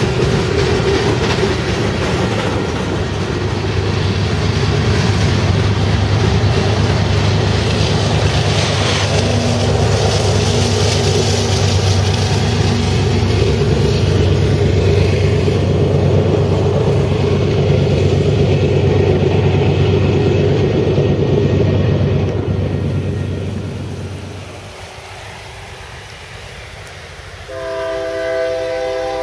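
A freight train passing close by, its cars clattering and rumbling over the rails with a steady low rumble, fading away about three-quarters of the way through. Near the end a multi-note train air horn sounds a chord.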